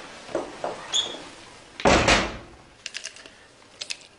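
A door slams shut about two seconds in. Then come quick, light clicks as small tablets rattle out of a plastic pill bottle into a hand.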